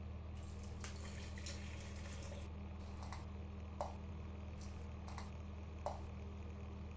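Coffee being poured from a glass carafe into a mug, faint, with a few light clinks over a steady low hum.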